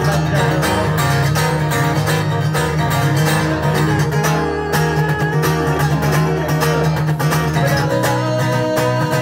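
Acoustic guitar strummed in a quick, steady rhythm, played live through a microphone.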